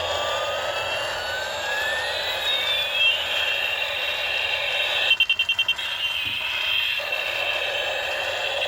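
Electronic siren-like sound effect: a steady buzzing tone with a pitch gliding upward over about three seconds. About five seconds in comes a quick run of about ten rapid pulses.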